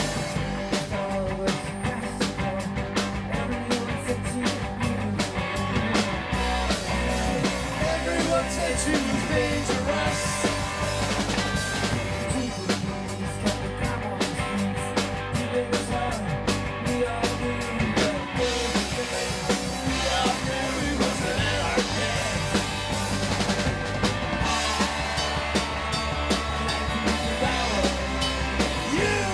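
Live rock band playing through a PA: two electric guitars, electric bass and a drum kit, with a steady drum beat throughout.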